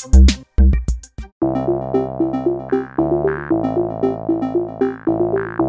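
Background electronic music: a drum beat cuts off about a second in, and after a short pause a synthesizer keyboard riff with a steady pulse comes in.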